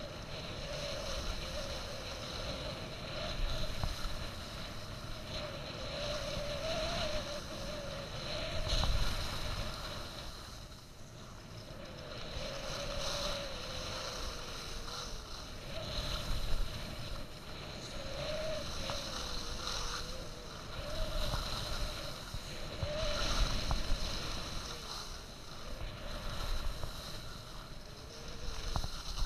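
Skis sliding and carving on groomed snow: a hiss that swells and fades with each turn, with wind rumbling on the camera's microphone and a faint wavering whistle.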